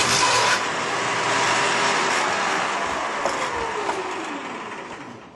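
Shopsmith table saw with a dado blade whirring, then spinning down after being switched off: the noise fades steadily with a falling tone in the second half.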